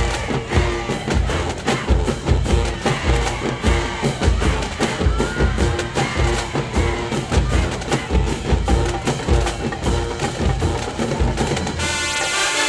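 High school marching band in the stands playing a drum-heavy groove: bass drums and snares pounding a steady beat under held brass notes. Near the end the drums cut out abruptly and the band switches to sustained brass chords.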